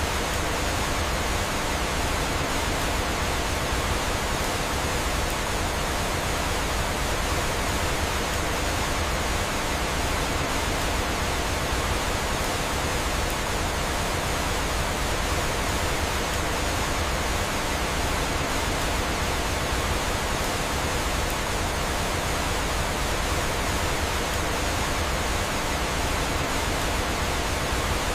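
Steady, unbroken rush of flowing water, like a waterfall.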